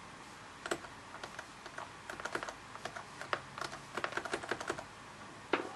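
Laptop keyboard keys clicking in short, irregular runs of taps as the arrow keys step through a BIOS setup menu, with one louder click near the end.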